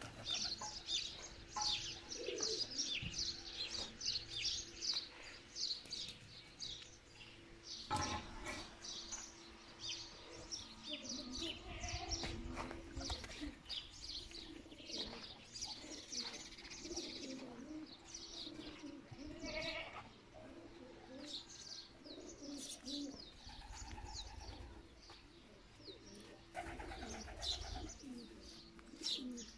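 Domestic pigeons cooing, with many quick high bird chirps going on all through.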